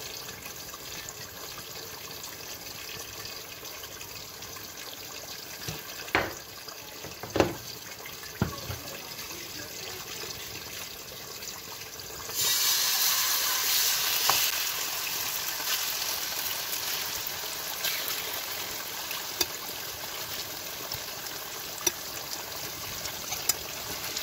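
A few sharp knocks, then about halfway through marinated chicken pieces go into hot cooking oil in a frying pan and start sizzling: a sudden loud hiss that keeps going steadily, with small clicks as the pieces are moved.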